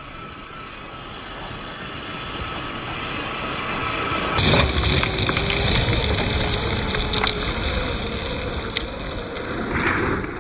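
1/8-scale RC Ford Bronco crawler driving over loose riverbed gravel: tyres crunching and scattering stones, with a faint electric motor whine. The sound grows louder, then jumps to a closer, louder crunching with sharp clicks of stones about four seconds in.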